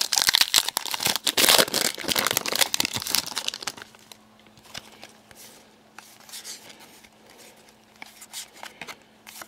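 Foil wrapper of a Panini Contenders hockey card pack being torn open and crinkled for about the first four seconds. After that, softer rustling and light clicks as the cards are handled.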